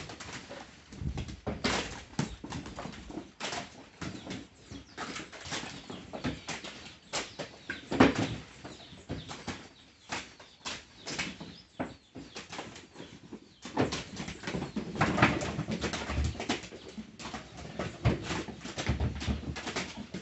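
Irregular knocks, taps and rustling, with the loudest knock about eight seconds in.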